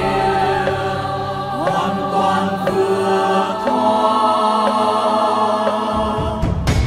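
Background music: a group of singers holding long, slow notes in a Buddhist devotional song, with a short thump near the end.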